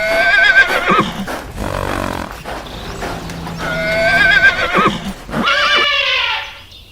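Horse whinnying, three loud neighs with a wavering, falling pitch.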